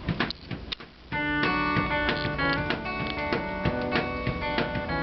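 A few light clicks, then about a second in, guitar-led music starts with sustained strummed or plucked chords and carries on.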